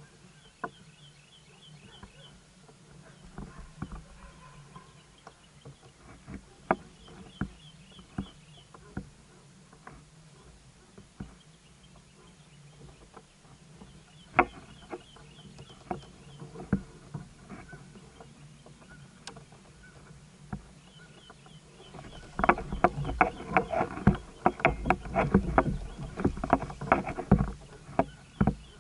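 Scattered knocks and clatter from a fishing kayak and its rods. About 22 seconds in, they turn into a dense, loud run of knocking and rattling as a fish is hooked and fought on a bent rod. A bird's short, quick run of high chirps repeats every few seconds.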